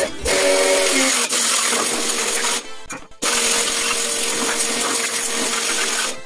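Pressure washer spraying a bicycle wheel's hub and disc brake rotor: a loud hissing jet over a steady motor hum, cutting out for about half a second around three seconds in and then resuming.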